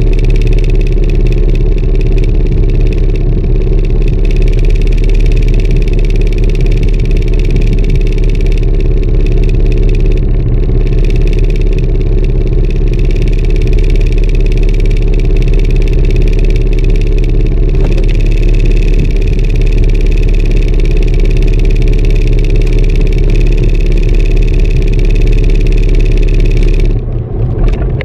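Inboard engine of a wooden fishing boat running steadily, a loud even drone that dips briefly near the end.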